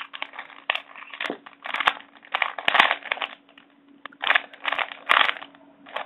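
Plastic 3x3 Rubik's cube being turned by hand through a move sequence: quick runs of clicking and scraping as the layers rotate, in about five spurts with short pauses between them.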